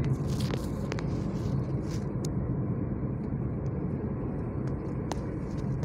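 Steady low rumble of a car driving on a highway, heard from inside the cabin: engine and tyre noise, with a few faint clicks.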